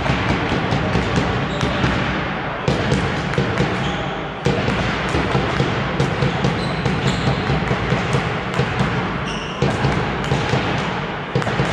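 Balls bouncing and thudding on a sports hall floor, repeated irregularly and echoing in the large hall.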